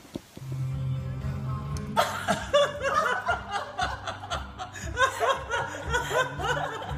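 Background music with a low bass line. From about two seconds in, laughter rises over it.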